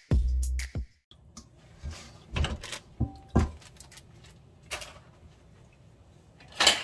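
A short music jingle ends on a low note, then a stainless steel colander in a metal sink gives a few separate knocks and light clatters as a raw whole chicken is handled in it. One knock has a brief metallic ring.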